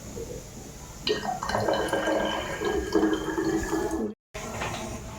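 Kadha, a liquid herbal decoction, being poured into a bottle: a steady filling sound that starts about a second in and lasts about three seconds.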